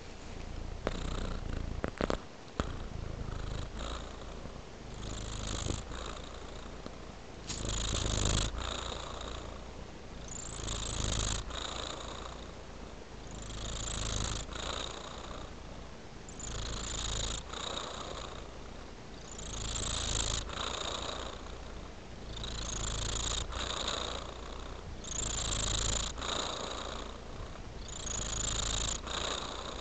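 Domestic tabby-and-white cat purring while dozing, the purr swelling and easing with each breath about every three seconds. A few short clicks about two seconds in.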